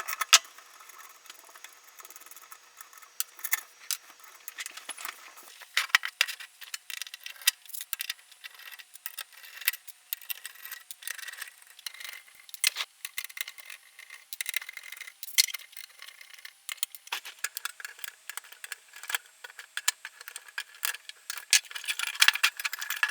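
Irregular clicks and light metallic rattles of hands handling and turning over an opened bench power supply's metal case and circuit board.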